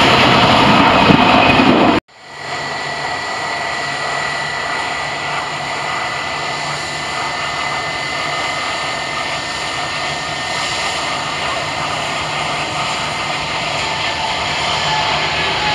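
Airbus A330 jet engines loud at climb-out power, cut off abruptly about two seconds in. Then a Boeing 777-300's engines at takeoff power during its takeoff roll: a steady rumble with a thin high whine, growing louder near the end as it nears rotation.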